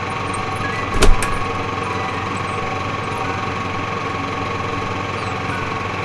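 A steady machine drone, like a small engine running, with one sharp knock about a second in.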